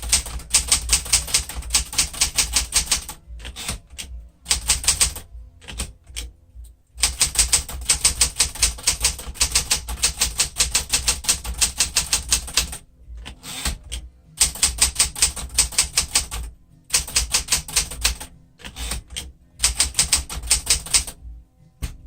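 Keys of a 1972 Smith-Corona Classic 10 manual portable typewriter being typed in quick runs of sharp clacks, several strokes a second, with short pauses between bursts.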